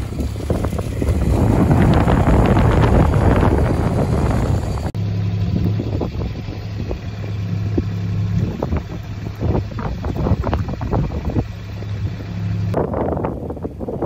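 Gusty wind buffeting the microphone, heaviest in the first five seconds. After an abrupt change about five seconds in, it becomes a steadier low wind rumble with scattered small knocks.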